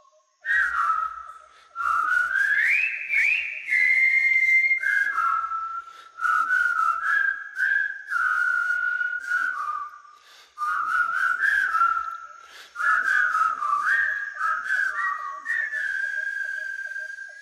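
A person whistling a tune, one melodic line in short phrases with brief pauses, ending on a held note.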